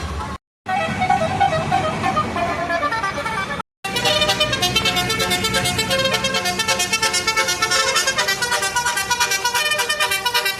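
Tour bus telolet basuri horns, multi-tone air horns playing quick melodic runs of notes. The sound cuts off abruptly twice, about half a second and nearly four seconds in; after the second break the horn plays a fast, trilling sequence of notes.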